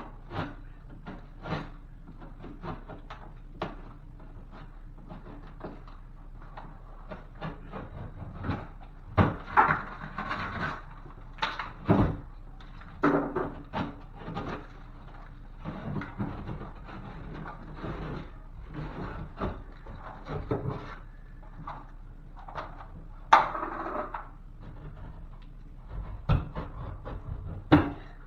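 Dry drywall being cut and worked out of a ceiling by hand: irregular knocks and taps, with a few short rasping scrapes of the blade through the board.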